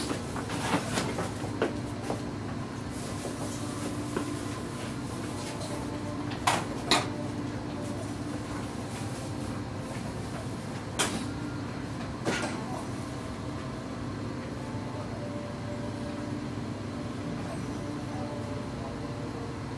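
Steady hum of kitchen machinery with scattered knocks and clatters from off-camera handling: a few in the first couple of seconds, the loudest pair about six and a half seconds in, and two more around eleven and twelve seconds in.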